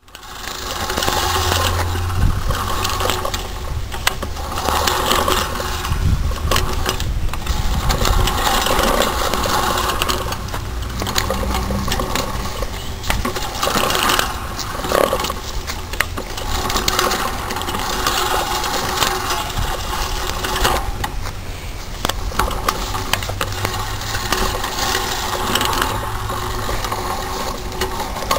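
A lawn mower's blades whirring and clattering through grass with no engine to be heard, swelling and easing every couple of seconds as it is pushed along.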